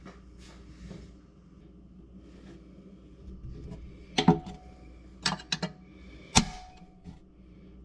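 Snap ring being worked down into its groove in a 200-4R transmission case with a screwdriver. A handful of sharp metallic clicks come between about four and six and a half seconds in, a couple of them with a short ring.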